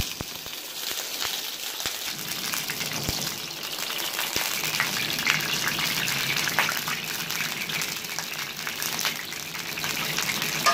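Desi ghee melting and sizzling in a hot pan for a tadka: a steady hiss with scattered crackles, and a few light clicks in the first seconds.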